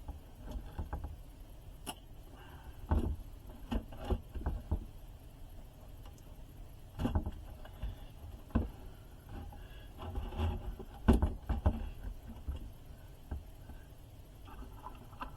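Irregular knocks, taps and clicks of hands and a screwdriver working screws and hardware out of a guitar amplifier cabinet, with the sharpest knock about eleven seconds in.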